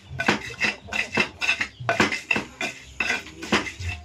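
Pestle (ulekan) pounding and grinding spices in a cobek mortar, about two to three knocks a second, mashing a spice paste for vegetable curry in coconut milk.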